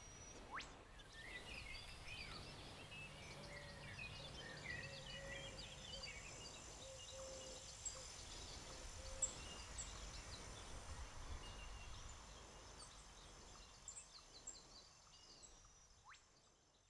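Faint outdoor ambience: birds chirping, mostly in the first half, over a steady high insect drone and a low rumble, fading out near the end.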